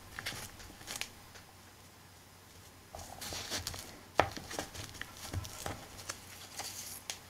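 Hands pressing and smoothing glued fabric and paper onto a journal cover on a cutting mat: soft rustling, with a few light taps and clicks scattered through.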